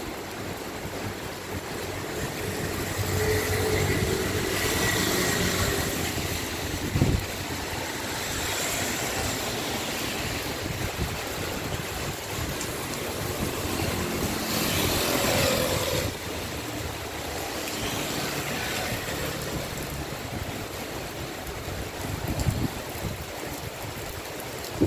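Heavy rain falling steadily, with vehicles passing on the flooded road, their tyres swishing through water: one swells past a few seconds in and another just past the middle. A single sharp knock about seven seconds in.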